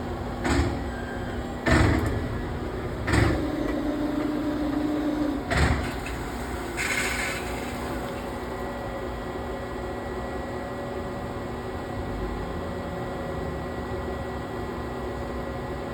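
Hitachi Seiki Hitec-Turn 20 S II CNC lathe running with a steady hum, with four clunks in the first six seconds, a steady whine between the third and fourth clunk, and a short hiss about seven seconds in.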